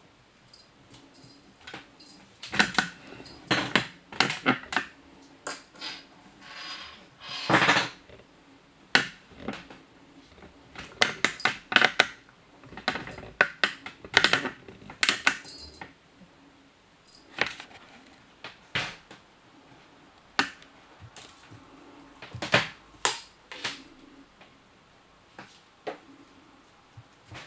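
Irregular clicking, knocking and rattling of a plastic cat track toy being batted and pawed by a kitten, in quick clusters with gaps between.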